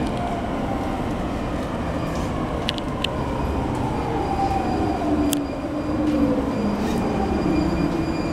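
Sotetsu 10000 series electric train running, heard from inside the car: its Mitsubishi IGBT-VVVF inverter and traction motors whine with several tones sliding in pitch over the steady rumble of the wheels on the rails, with a few sharp clicks.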